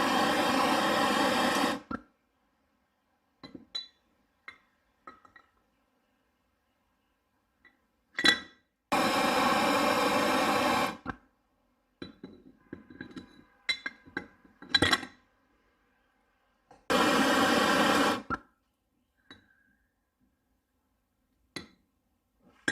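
Propane torch burning in three runs of a few seconds each, each cut off abruptly, heating a steel bolt and nut. Between the runs come sharp metal clinks and clicks as the hardware is handled.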